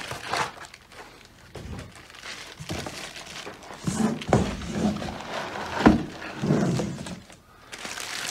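Cardboard box and plastic packaging rustling, with a few sharp knocks, as a bagged PTZ camera is slid out of its box by hand.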